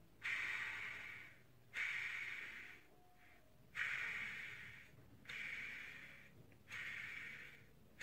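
Tissue rubbing over a vacuum cleaner motor's fan in repeated wiping strokes, a dry hissing stroke about every second and a half, each starting suddenly and fading, as the degreased impeller is cleaned.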